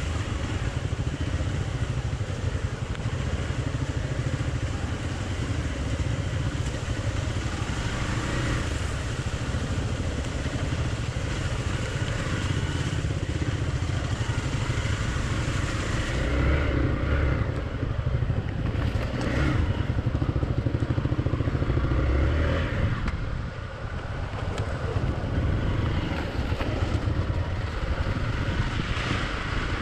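Hero Xpulse 200 single-cylinder motorcycle engine running steadily while the bike is ridden along a rough off-road trail, with scattered knocks and clatter. The sound dips briefly about 23 seconds in.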